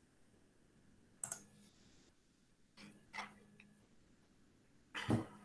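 Faint, scattered computer mouse clicks: one about a second in, two near three seconds, and a louder, heavier click near the end.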